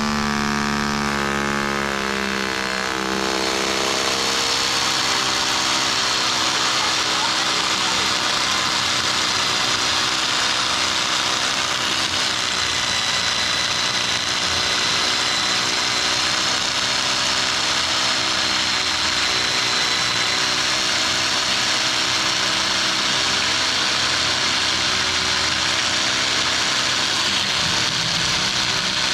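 Rotary hammer drill boring into a concrete floor for anchor-bolt holes, running steadily without a break.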